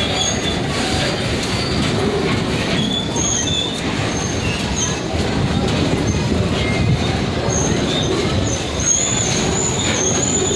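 Excursion train rolling along its track, heard from aboard: a steady rumble of the cars with short, high wheel squeals that come and go, longest and loudest near the end.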